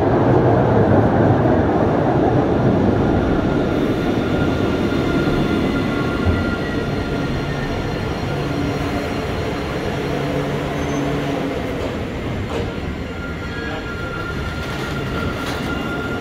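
Alstom Citadis 403 tram running through the station. Its rolling noise is loudest in the first few seconds and then eases off. Faint steady whining tones run over it, and there is a sharp click about six seconds in.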